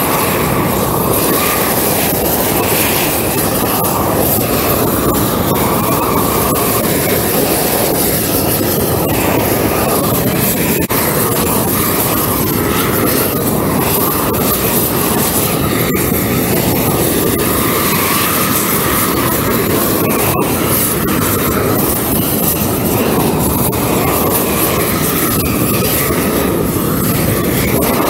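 Long-wand propane weed-burner torch running steadily, its flame swept over timber boards to char the surface lightly.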